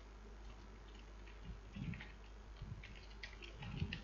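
Faint computer keyboard typing: scattered, irregular key clicks, with a couple of soft low thuds.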